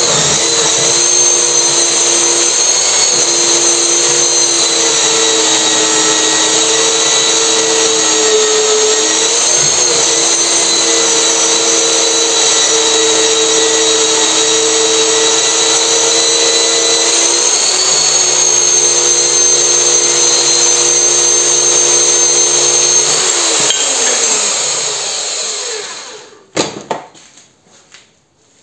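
Portable handheld band saw cutting through a steel ring blank clamped in a vise, its motor running steadily under load. About 24 seconds in the motor winds down with a falling whine, and a couple of sharp clunks follow as the saw is set down on the bench.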